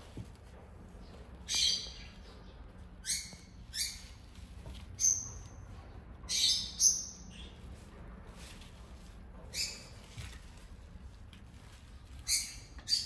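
Short, high bird chirps, about nine of them at uneven intervals, a few sliding down in pitch, over a faint steady low hum.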